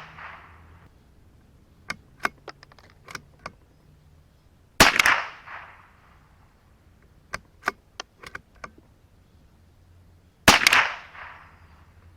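.22LR CZ 457 bolt-action rifle firing twice, about six seconds apart, each shot with a short echoing tail. Between the shots there are several lighter clicks as the bolt is worked to chamber the next round.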